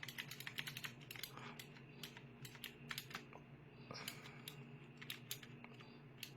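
Mechanical keyboard keys clicking as the WASD movement keys are pressed in a game: a quick run of clicks over the first second or so, then scattered single presses, over a faint steady hum.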